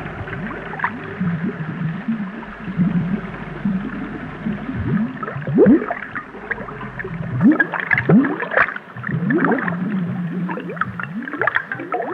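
Cartoon underwater sound effect: bubbles gurgling, each a quick rising glide, in irregular clusters over a low underwater rumble that drops out about seven seconds in.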